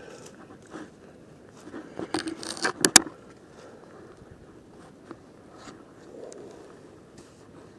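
Rustling and scraping of gear being handled close to the microphone: a run of scrapes about two seconds in ends in one sharp click near three seconds, then only faint scattered ticks.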